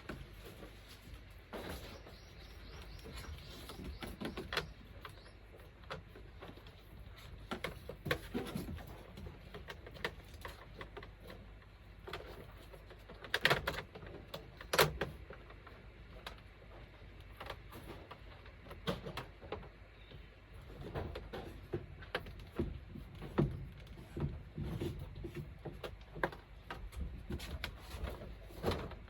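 Intermittent knocks, clicks and clatter of hand work on an air-conditioner installation, parts and tools being handled, with two louder knocks about halfway through.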